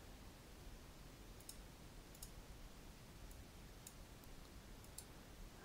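Faint computer mouse clicks, a few separate clicks spread over near-silent room tone.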